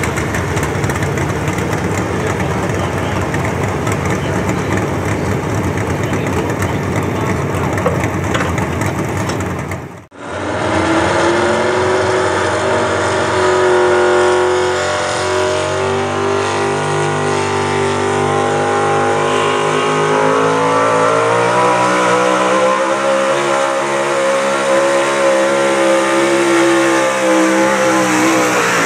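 Big-block V8 pulling trucks at full throttle dragging a weight sled. The first engine runs hard and breaks off abruptly about ten seconds in. A second run follows, its engine note climbing steadily under load and dropping away at the very end as the throttle comes off.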